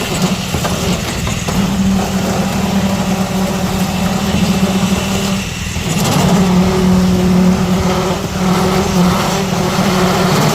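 Engine of a concrete mixer running steadily during a pour, its note growing a little stronger about six seconds in.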